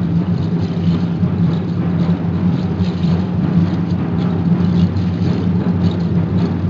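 Aztec dance drumming: a large drum beaten fast and steadily, its beats blurring into an even low rumble in the echoing church, with faint rattling over it.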